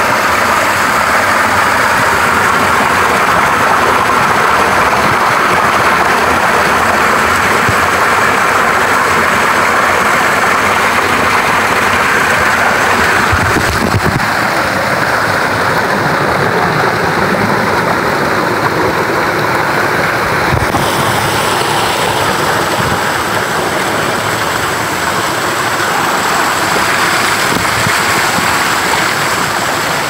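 Small waterfall pouring over a brick-and-rock ledge and splashing right at the microphone: a loud, steady rush of falling water whose tone shifts slightly about halfway through.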